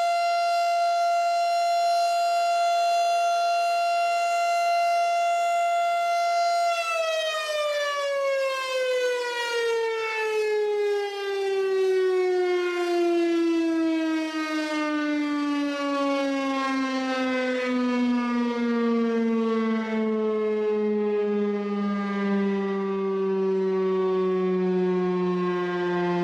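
Federal Signal STH-10 outdoor warning siren sounding a steady high tone, then, about seven seconds in, winding down in a long, slow falling glide as its rotor coasts after the test alert signal ends.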